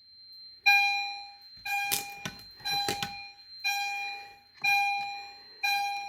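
Edwards EST Genesis fire alarm chime strobe sounding in alarm after a pull station is activated. It gives a sharp chime about once a second, each one fading away. A faint steady high beep runs underneath.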